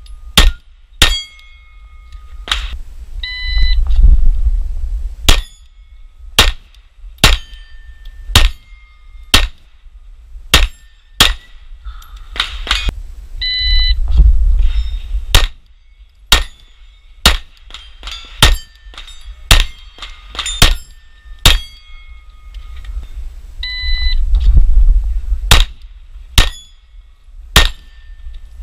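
9mm Glock 34 pistol firing repeated shots about a second apart at steel targets, many shots followed by the ringing clang of a hit steel plate. Three times a short electronic shot-timer beep starts a new string.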